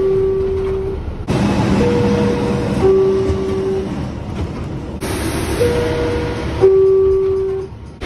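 R62A subway car door chime: a two-note descending ding-dong, each note held about a second, heard finishing once at the start and then twice more in full over the rumble of the car and station. The chime warns that the doors are about to close.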